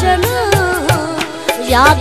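Hindko mahiya folk song: a solo voice sings a long, ornamented melody line that bends and wavers in pitch, over a low, regular drum beat.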